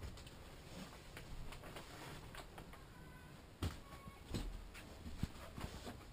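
Faint small-room tone with a few soft thumps and clicks, mostly in the second half, from a camera being carried and turned around the room.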